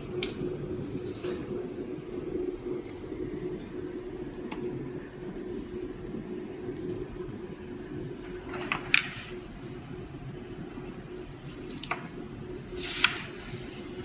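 Small screwdriver and metal connector parts being handled, giving faint scattered clicks and taps over a steady low hum; a sharper metallic click about nine seconds in and another near the end.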